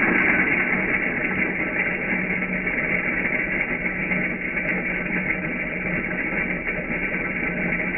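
Coffee grinder grinding beans: a steady, dense grinding noise with a constant low hum underneath.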